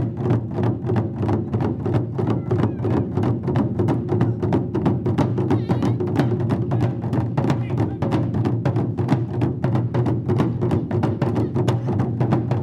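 Taiko drum ensemble playing: several large barrel drums on slanted stands, struck with wooden bachi sticks in a fast, steady beat.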